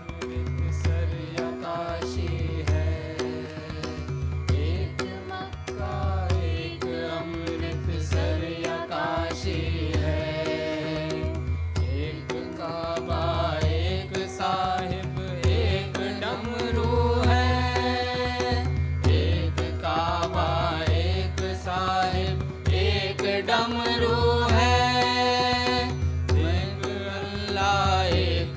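Dhrupad vocal in Raag Bhairav: voices singing long, gliding melodic lines over a steady drone, with pakhavaj drum strokes keeping the rhythm.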